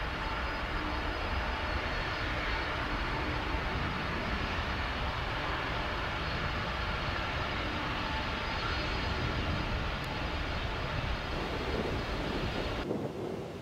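Boeing 767 twin jet engines running at taxi power: a steady rushing noise with a thin high whine on top. Near the end it cuts abruptly to a quieter, duller rumble.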